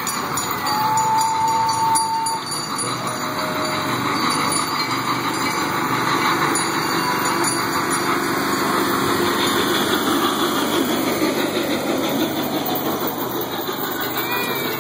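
Small engine of a trackless kiddie barrel train running steadily as the train drives past, with a short steady high tone about a second in.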